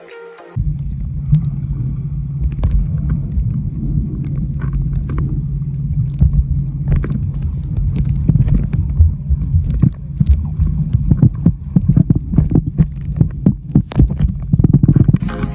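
Muffled underwater sound picked up by a submerged camera: a steady low hum over a dense rumble, with sharp clicks and knocks that come more and more often toward the end.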